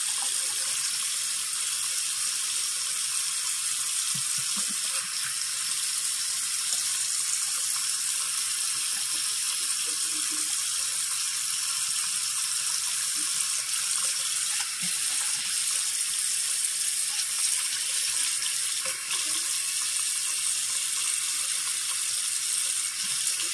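Bathroom sink tap running steadily into the basin, with a toilet brush being scrubbed around the wet sink under the stream.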